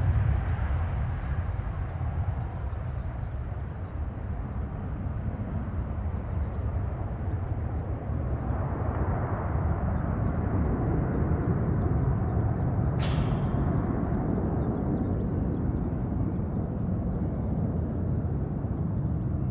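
Boeing 737-800's CFM56-7B turbofan engines at takeoff thrust as the airliner lifts off and climbs away: a steady, deep rumble. A single sharp click comes about two-thirds of the way through.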